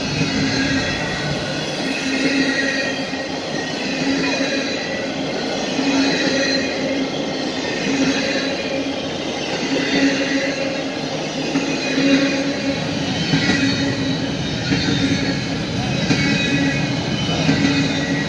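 Norfolk Southern freight train of empty intermodal well and spine cars rolling past. The steel wheels run on the rail with a steady rumble that swells in a regular rhythm about once a second, with faint high wheel squeal over the top.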